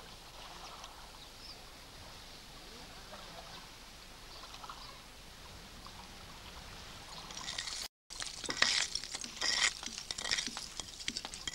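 Faint water splashing and trickling as hands are rinsed at a lake's edge. The sound cuts out briefly about eight seconds in, then gives way to a louder run of crisp scraping and crunching clicks from a hand working among stones and grit.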